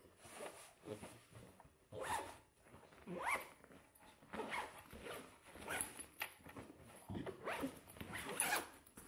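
Zippers on a fabric backpack being pulled shut, one after another: several short zips that rise in pitch.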